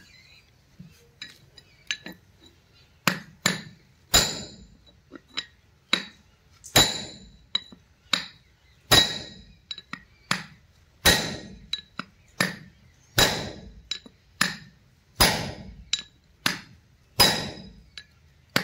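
Hammer blows on a steel chisel set against the end of a combine cutter motor's splined gear shaft: metal-on-metal strikes, each ringing briefly. A few light taps come first, then firm blows at about one a second.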